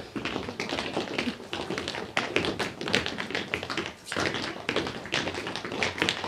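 Footsteps of a group of people walking and skipping briskly across a hard stage floor: a dense, uneven run of shoe taps.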